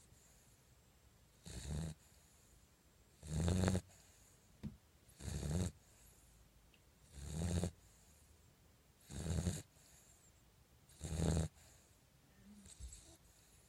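A dog snoring in its sleep, with a snore about every two seconds: six loud ones, then a fainter one near the end.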